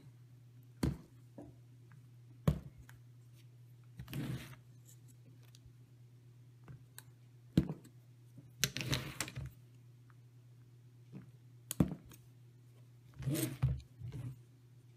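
Wire strippers cutting and stripping the insulation off the ends of quadcopter ESC power leads: sharp snips every few seconds, with short scraping bursts as the insulation is pulled off. A steady low hum runs underneath.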